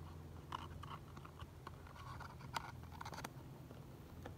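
Fingers handling a cardboard Happy Meal box: light scrapes, rubs and taps on the card as the lid tabs are worked, with a sharper click about two and a half seconds in and a few more just after three seconds.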